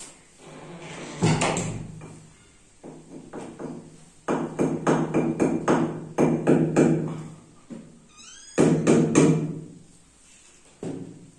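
Hammer driving a nail into a wall, a run of quick strikes at about three to four a second in the middle, with shorter bursts of blows early on and again near the end.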